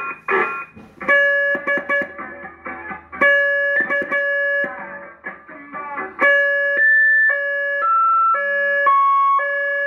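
Electronic tone effects from a custom CB radio's caller and effects box, played through the radio while the microphone is keyed: a long pattern of held beeps that step between pitches, mixed with runs of short, quick musical notes.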